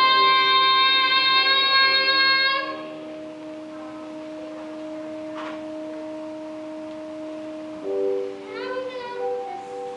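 A child's singing voice holding one long high note, which ends about two and a half seconds in. Quieter backing music with steady held notes follows, changing to new notes with a short rising phrase near the end.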